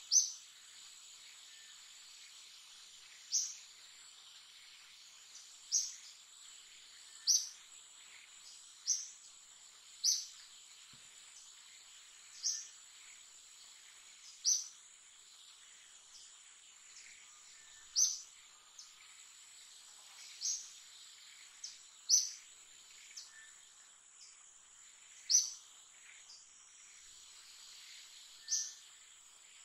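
Forest ambience: a steady high-pitched insect drone, with a bird giving short sharp chirps every one to three seconds.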